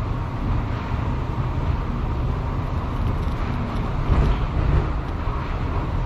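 Steady low rumble and hiss of an automated people-mover car running along its guideway, heard inside the car, swelling slightly about four seconds in.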